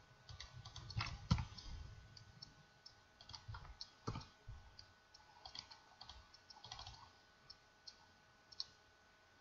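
Faint computer keyboard keystrokes and mouse clicks, scattered and irregular, with a couple of louder taps about one and four seconds in.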